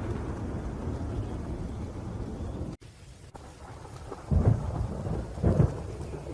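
Rain with low rolling thunder, cutting out abruptly a little under three seconds in. The rain comes back quieter, then two loud thunderclaps sound about a second apart.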